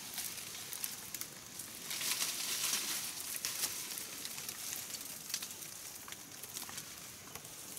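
Leafy vines and undergrowth rustling and crackling as they are pulled and handled, with scattered small snaps of stems. The rustle swells about two seconds in.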